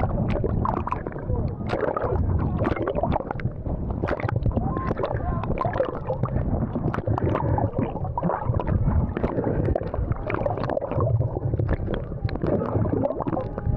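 Sea water sloshing, splashing and gurgling without a break, with indistinct voices mixed in.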